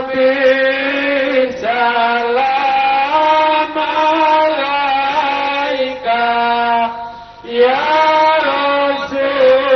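Male voices chanting Islamic dhikr through microphones and a PA system, in long held melodic notes that step from pitch to pitch. There is a short pause for breath about seven seconds in.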